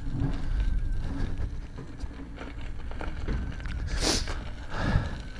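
Electric unicycle riding along a dirt forest trail: a steady low rumble of the tyre over the ground mixed with wind on the microphone, with a brief hiss about four seconds in.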